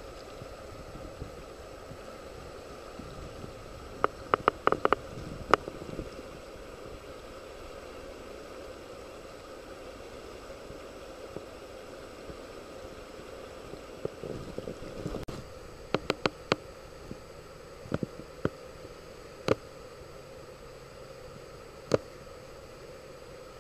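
River water running steadily over a cobble riffle. Short sharp clicks come in a cluster about four seconds in and again, scattered, from about fifteen seconds on.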